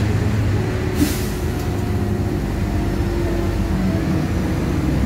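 Inside a LiAZ-5293.60 city bus: its diesel engine runs with a steady drone, and a short hiss of compressed air comes about a second in.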